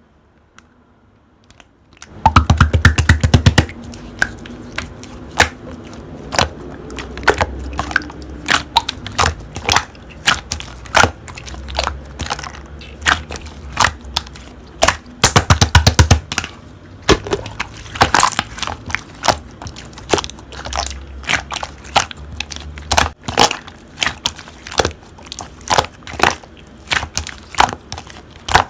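Slime being squeezed and pressed by hand, giving runs of sharp clicking and popping crackles with short pauses between, starting about two seconds in.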